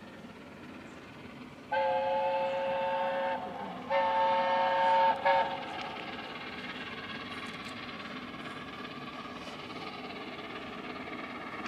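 Steam locomotive sounding its whistle in two blasts, each a chord of several steady notes, the first starting a little under two seconds in and the second ending a little after five seconds. Under and after them comes the steady running noise of the approaching steam train.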